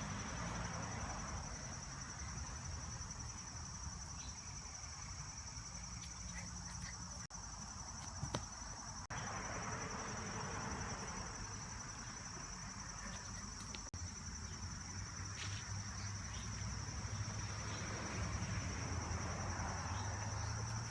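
Insects trilling steadily in one continuous high buzz, over a low background rumble.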